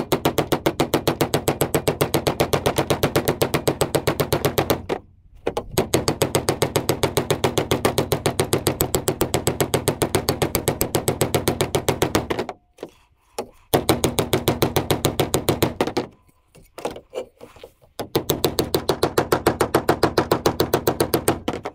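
Bent outboard propeller blade being tapped straight: rapid, evenly paced metal knocks, several a second, in four runs with short pauses between them, each knock ringing briefly.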